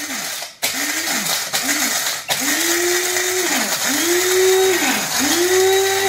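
Electric blade coffee grinder pulsed on and off six times while grinding coffee beans. The motor speeds up and winds down with each press, with a gritty rattle of beans against the blade. The first three pulses are short and the last three last more than a second each.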